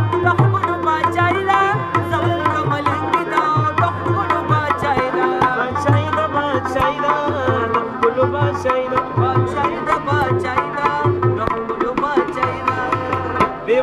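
Live ensemble music: tabla playing a rhythmic pattern of deep strokes under a harmonium and rabab melody.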